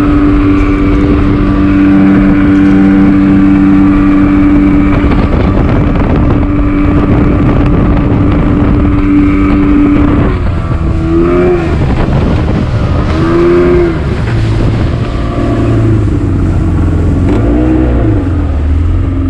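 Speedboat engine running hard at a steady pitch, with wind and water rushing past. About ten seconds in it eases off, and its pitch drops and wavers as the boat slows.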